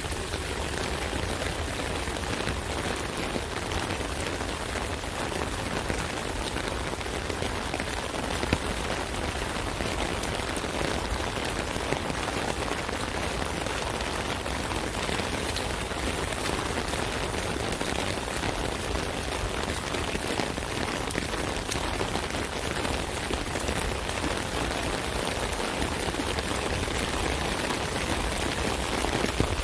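Steady rain falling on an umbrella, a dense patter of drops with an occasional louder drip.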